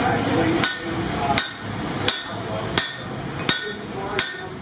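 Steady hand-forging hammer blows on hot steel at an anvil: six even strikes about 0.7 seconds apart, each with a short metallic ring.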